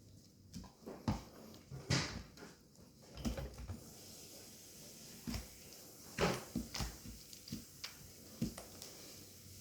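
Homemade slime being kneaded and pulled apart by hand, giving irregular sticky clicks and pops; the slime is too sticky and clings to the hands.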